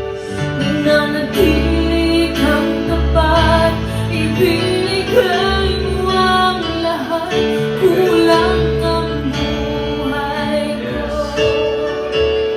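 Worship song: a woman singing over an instrumental backing with guitar.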